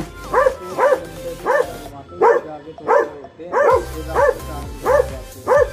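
Dobermans barking repeatedly, about nine barks at a steady pace of roughly one every two-thirds of a second, each bark rising and falling in pitch.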